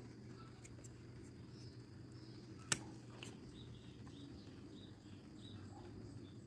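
Quiet background with one sharp click a little under three seconds in, as a knife cuts through a succulent's fleshy flower stalk, and a smaller click just after.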